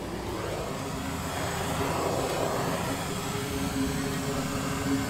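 Hand-held gas blowtorch burning with a steady hiss, its flame heating the bead of a hardened old truck tyre to soften the rubber.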